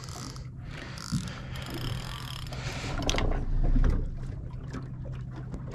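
Spinning reel being worked against a heavy fish that is taking line, with mechanical clicking from the reel and drag over a steady low hum. A louder low rumble comes about three to four seconds in.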